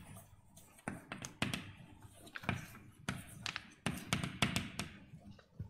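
Chalk tapping and scraping on a blackboard while writing: a dozen or so sharp, irregular taps, bunched more closely in the second half.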